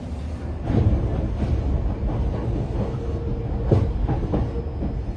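Electric commuter train running, heard from inside the passenger car: a steady low rumble of wheels on rail, with the wheels clacking over rail joints several times.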